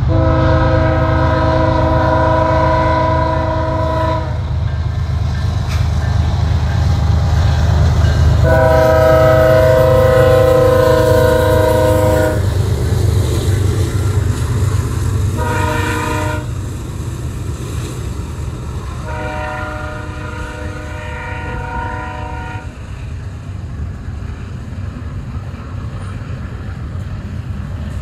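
Diesel freight locomotive horn sounding four blasts, long, long, short, long: the standard signal for a grade crossing. Under it runs the steady rumble of the locomotives and freight cars rolling past, which eases once the locomotives have gone by.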